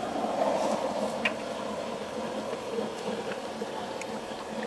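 Rice vermicelli frying in a hot wok over a gas burner: a steady sizzle and hiss, a little louder in the first second, with a few sharp clicks of the metal spatula against the wok.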